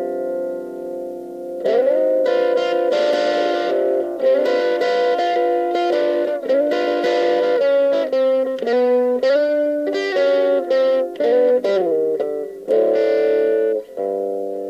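Overdriven electric guitar playing a boogie riff: chords and single notes with bends and slides, ringing out with short breaks between phrases.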